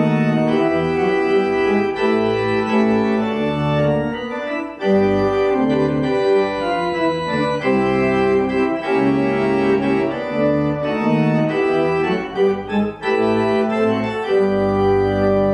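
Organ playing sustained chords over a low bass line; the music stops at the very end.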